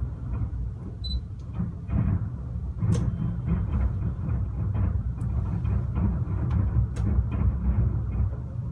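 Fireworks bursting in a dense barrage: a continuous low rumble of overlapping booms, with two sharp cracks about three and seven seconds in.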